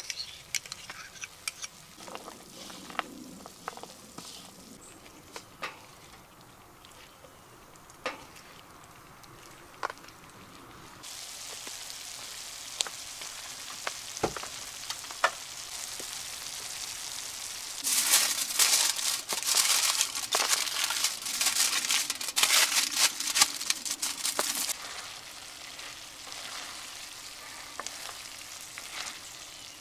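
Chicken and vegetables sizzling in a wrought-iron skillet over a charcoal fire, with the scrapes and taps of a wooden spatula stirring them. Scattered clicks over a quieter hiss at first; the sizzling turns loud and crackly for several seconds past the middle.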